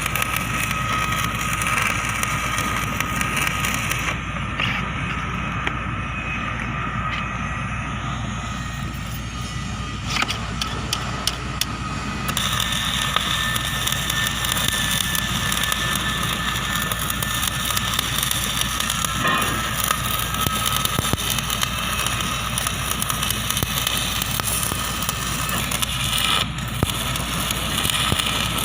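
Electric stick (arc) welding: a steady crackling and hissing of the arc over a constant low hum, easing off in its high hiss for several seconds early on, then full again from about twelve seconds in.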